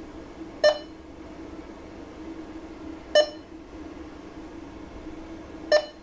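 Three short electronic beeps from a Posiflex POS terminal's touchscreen, about two and a half seconds apart, each one a touch being registered as a finger taps the screen. A steady low hum runs underneath.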